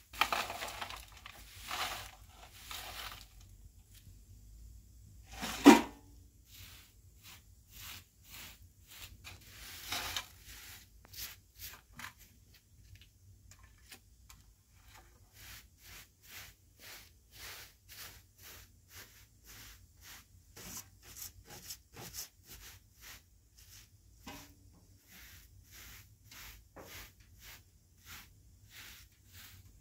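Short straw hand broom sweeping dirt and straw across a rug and mat, in quick scratchy strokes, about two a second for much of the time. One sharp knock about six seconds in is the loudest sound.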